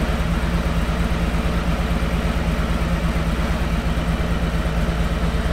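Harley-Davidson Road Glide's Milwaukee-Eight V-twin idling steadily.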